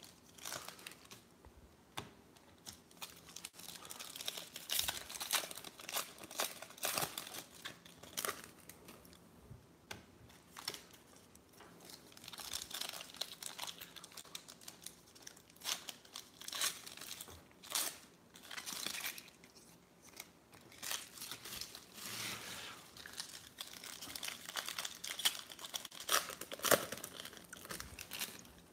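Foil trading-card packs being torn open and crinkled by hand, with irregular sharp crackles of the foil wrapper throughout.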